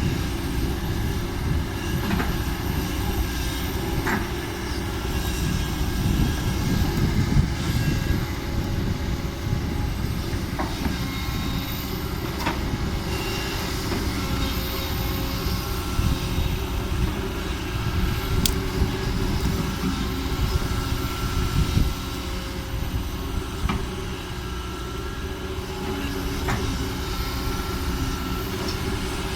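Heavy diesel dump truck engine running steadily with a deep rumble, with faint whines and squeals above it and a few sharp clicks.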